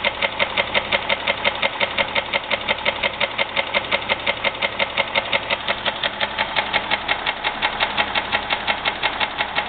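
2001 Jeep Grand Cherokee's 4.0-litre straight-six idling with a sharp, even knock about five times a second. The knock came on suddenly, and the owner asks whether it is piston slap or rod knock.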